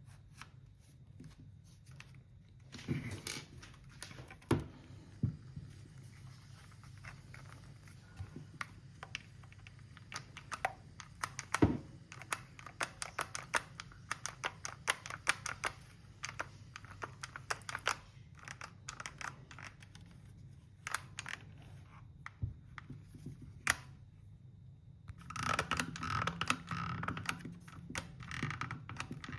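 Irregular sharp clicks and taps of hard plastic, thickest in the middle, with a scratchy rustling stretch near the end, over a steady low hum.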